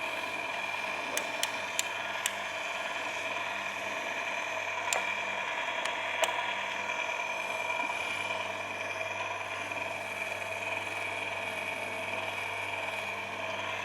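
Baumr-AG electric chainsaw sharpener running steadily, its motor giving a constant hum with a high whine, and a few sharp clicks in the first half.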